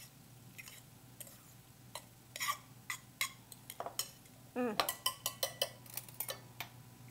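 Metal utensil scraping and clinking against a stainless steel saucepan while fluffing and scooping out cooked orzo pasta: scattered clicks, then a quick run of ringing clinks about five seconds in.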